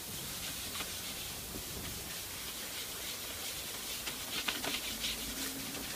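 Faint rubbing and handling sounds of a Bakelite radio cabinet being polished by hand, a few short scrapes bunched from about four to five and a half seconds in, over a steady hiss.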